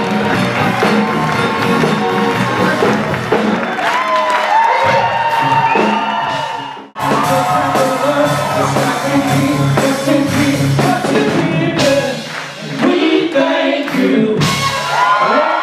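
Live blues and soul band music with singing, and a standing crowd cheering and whooping over it. The sound drops out for a moment about seven seconds in, then carries on.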